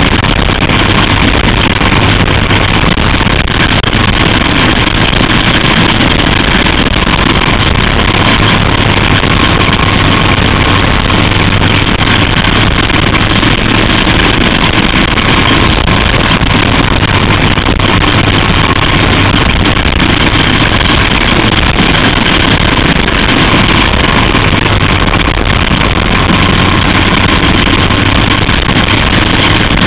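Small racing engine of a caged oval kart heard from on board, running hard at a nearly steady pitch, with a rushing noise over it.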